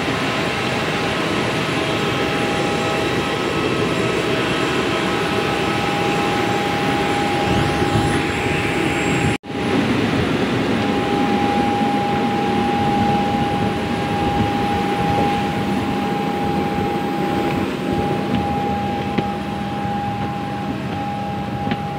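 Jet airliner noise on the apron: a steady, continuous rush with a high whine held on one pitch, broken for an instant about nine seconds in.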